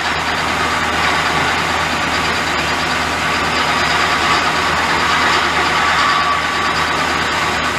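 Milling machine running steadily, its spindle and motor giving an even whir over a low hum.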